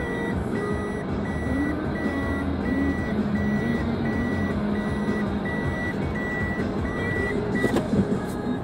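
Vehicle reversing alarm beeping at one steady pitch, nearly two beeps a second, over the low running of an engine; the beeping stops near the end, where there is a brief clatter.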